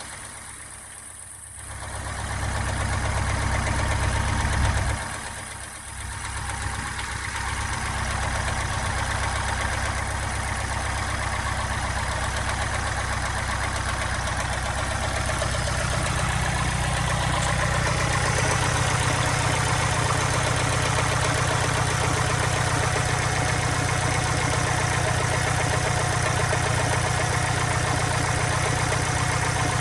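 Subaru Impreza STI's flat-four engine idling steadily with a knock that the owner asks might be piston slap. The sound fades briefly twice in the first several seconds.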